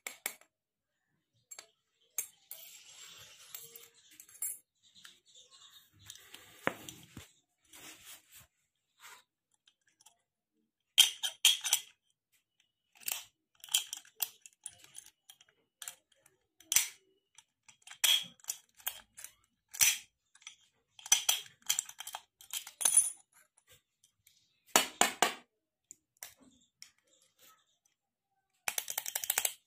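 Steel padlock turned and worked in the hands: irregular sharp metallic clicks and clinks of the shackle and lock body, some ringing briefly, coming in spells with short gaps between.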